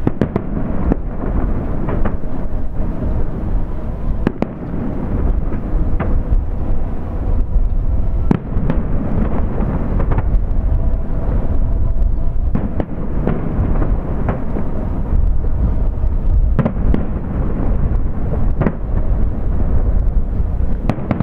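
Aerial firework shells bursting in quick succession: a continuous low rumble with frequent sharp bangs and their echoes.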